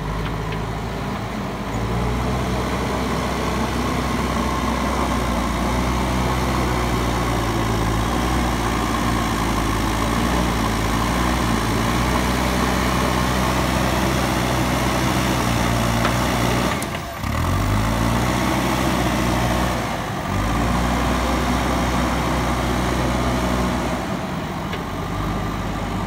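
JCB backhoe loader's diesel engine running steadily under working load, its pitch rising and falling as the throttle changes. There is a brief break in the sound about two-thirds of the way through.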